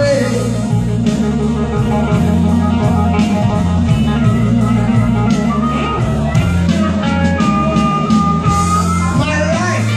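Blues backing track in an instrumental break, with a lead guitar over a bass line and drums; the guitar holds one long high note in the second half.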